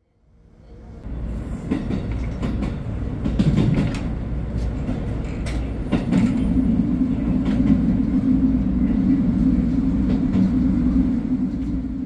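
Cab interior of a JR Hokkaido H100 diesel-electric railcar on the move: a steady running rumble with scattered clicks. It fades in over the first second, and a steady low engine drone grows stronger about six seconds in.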